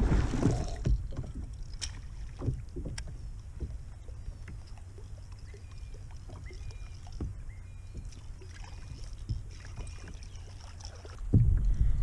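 Kayak on the water: a steady low rumble with scattered knocks and clicks of gear against the hull, louder in the first second and again near the end.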